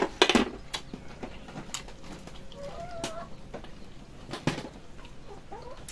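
Scattered clicks and light knocks of chopsticks, a spoon and bowls being handled over a metal tray during a meal, with a brief faint wavering bird call about two and a half seconds in.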